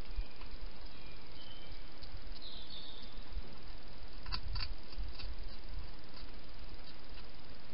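Hedgehog eating from a food bowl: a few soft clicks of chewing, clustered about four seconds in, over a steady background hiss.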